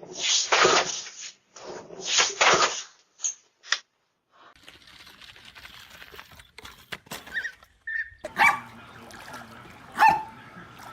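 A dog barking, a few loud harsh barks in the first three seconds. It then cuts off suddenly to quiet background sound with a few sharp clicks and a louder knock near the end.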